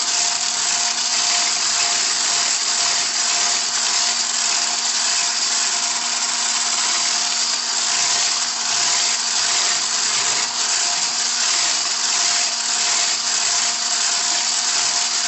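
Electric hand mixer running at a steady speed, its beaters whipping a batter of ghee, oil, sugar and eggs in a glass bowl; a constant motor whine with a hiss over it.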